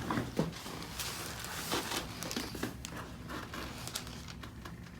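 Rustling and handling noise with scattered light clicks and knocks, the rustling heaviest about a second or two in.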